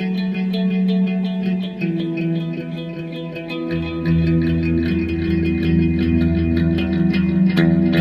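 Instrumental background music led by a guitar with effects, over a steady ticking beat; deep bass notes come in about halfway through.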